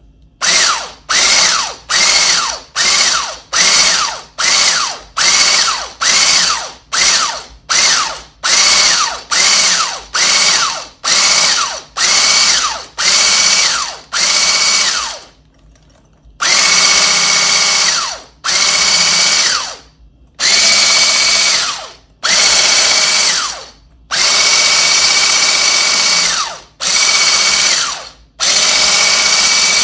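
Electric mixer whipping cream and sugar in a bowl, switched on and off in quick short pulses of about half a second each, each a whine that spins up and dies away. About halfway through it changes to longer runs of two to three seconds with short stops between.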